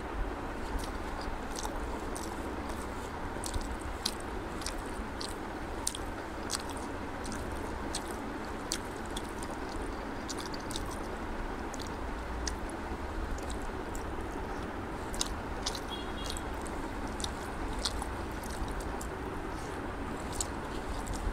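Close-miked eating sounds: wet, sticky clicks and squishes of fingers mixing rice with egg curry on a banana leaf, along with chewing, irregular and several times a second over a steady background noise.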